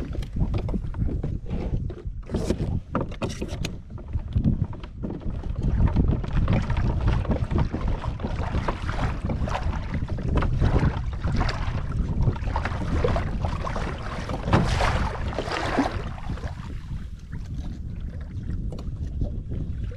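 Wind buffeting the microphone in uneven gusts, with water splashing against the hull of a fishing kayak on choppy water.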